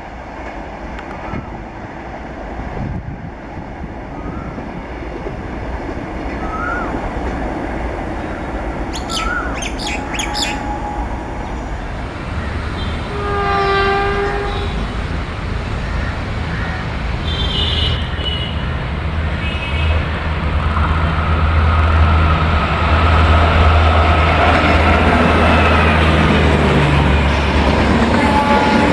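Indian Railways diesel locomotive approaching, its low engine drone growing steadily louder and heaviest in the last third. A short horn blast sounds about halfway through.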